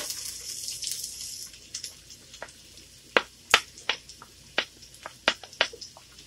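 Chopped onion pushed off a plate with a wooden spatula into hot oil in a frying pan: a burst of sizzling as it lands, fading over a second or so, then scattered sharp taps and scrapes of the spatula against the plate and pan.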